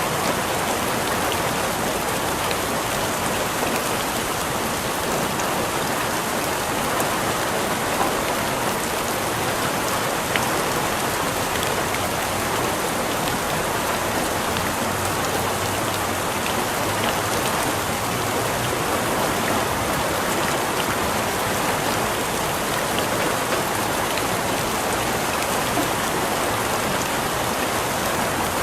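Steady rainfall, a dense even hiss of drops on a surface with occasional individual drop ticks.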